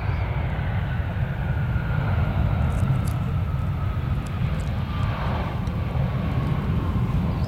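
Airbus A320's IAE V2500 turbofan engines during the landing rollout: a whine that slides slowly down in pitch over a steady low rumble.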